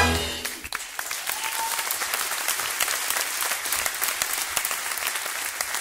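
Theatre audience applauding steadily, with dense clapping; the band's final held chord dies away in the first half-second.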